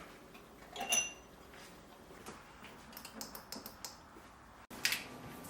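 Kitchen tableware clatter: a metal utensil clinks once against a dish about a second in, ringing briefly, followed by a few light taps and a short knock near the end.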